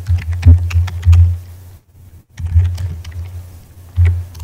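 Typing on a computer keyboard: irregular key clicks, with a low hum underneath that comes and goes.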